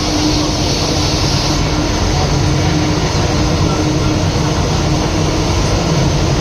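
Steady running noise of a train: a continuous low rumble with a constant hum.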